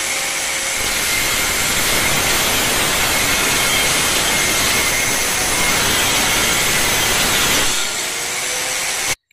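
Handheld angle grinder with a cut-off disc cutting through galvanized steel BRC welded wire mesh: a steady grinding noise with a faint whine. It eases off a little before the end, then cuts off suddenly.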